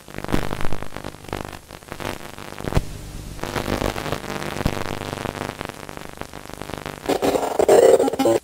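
Electronic static and glitch noise over a few steady low droning tones, with scattered clicks. It grows louder about seven seconds in, then cuts off suddenly.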